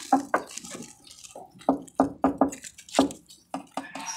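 Irregular short, hollow knocks and clunks, about a dozen, from the plastic-wrapped wheel-aligner pole being handled and bumped inside its wooden shipping crate.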